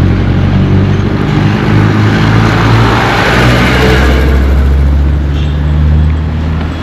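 A motor vehicle engine running close by, with a hum of low engine tones and the rush of a vehicle passing that swells midway and fades again.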